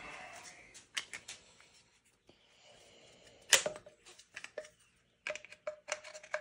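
Sharp clicks and knocks of a Spuhr stock assembly being handled and fitted onto a PTR91 rifle: a few clicks about a second in, one loud click about three and a half seconds in, then a quick run of clicks near the end.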